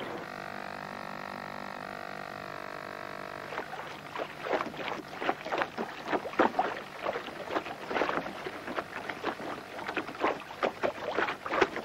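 A steady motor hum that stops abruptly after about three and a half seconds. Then comes an irregular run of water slaps and splashes, several a second, against a small boat's hull.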